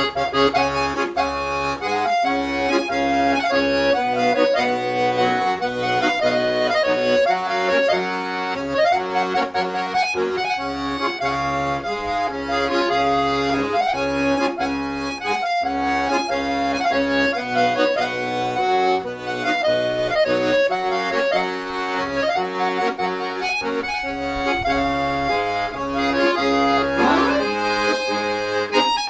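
Accordion (sanfona) music: a melody over regularly pulsing low bass chords.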